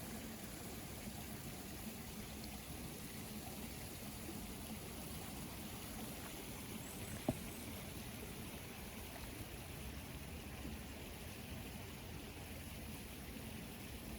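Water trickling steadily, as from a garden pond's inflow or water feature, with one brief click about seven seconds in.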